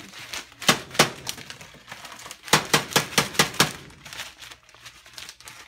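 Kitchenware clinking against glass: two single sharp knocks, then a quick run of about six clinks, with softer knocks between.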